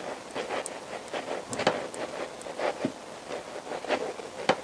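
Irregular light clicks and taps of a Honda CBR1000F's swing arm being worked back and forth by hand in the frame's pivot, as it is eased out of a tight fit.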